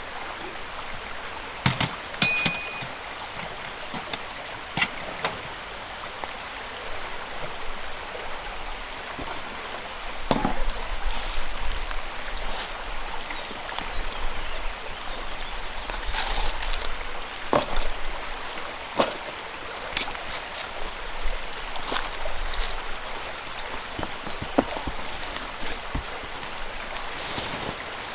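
A river flowing steadily under a constant high insect drone, with scattered light clicks and knocks throughout, busiest from about a third of the way in to near the end.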